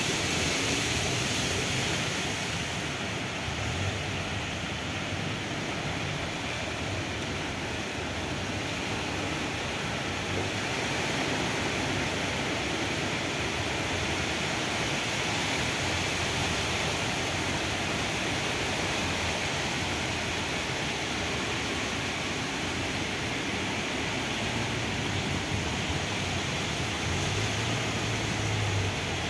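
Steady rush of floodwater streaming across a street, with vehicles wading through it and engines running low underneath.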